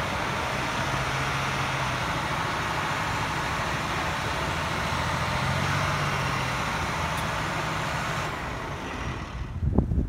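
A heavy snowplow truck's engine running with a steady low hum under a noisy rush as the truck skids on the snowy roadway; the sound fades about eight seconds in. Near the end, wind buffets the microphone.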